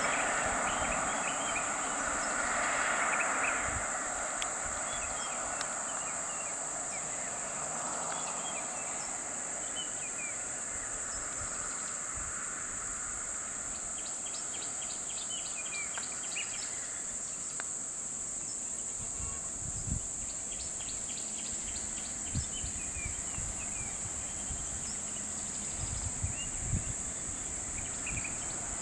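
Outdoor ambience dominated by a steady, high-pitched drone of insects, with scattered bird chirps and two runs of rapid trilling calls. A vehicle's noise fades away in the first few seconds, and a few low thumps come near the end.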